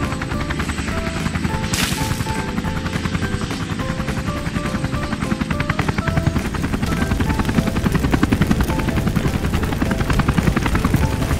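Helicopter sound effect: a steady, rapid rotor chop, with a simple melody of short plinking notes underneath and a brief hiss about two seconds in.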